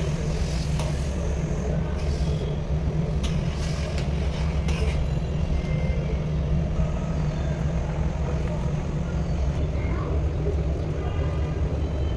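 A steady low droning hum, even throughout, with a few faint light clinks and short tones over it.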